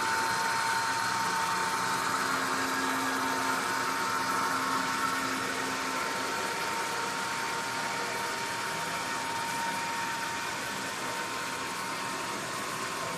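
HO scale model freight train running on the layout: a steady motor whine over the hiss of wheels rolling on the track. A higher whine fades out about halfway through.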